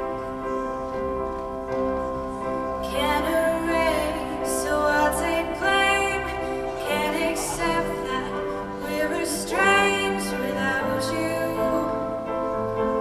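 Live show-choir performance: a female soloist sings a slow, held melody into a microphone, sliding up into several notes, over sustained backing chords.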